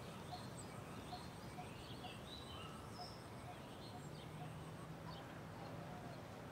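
Faint bird chirps, short and scattered, over a low steady background hiss.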